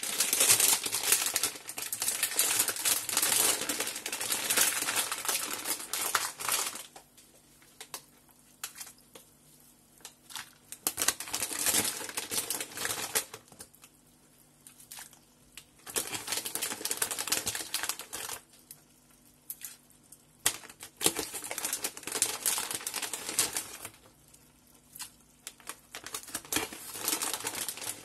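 Water heating in a pot near the boil: crackling and ticking as bubbles form and collapse. It comes in bursts of a few seconds with near-quiet gaps between.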